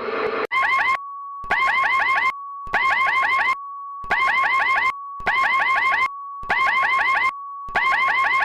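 Electronic emergency alert tone: a steady high beep with short bursts of quick warbling chirps laid over it, about one burst every second and a quarter. It starts abruptly about half a second in.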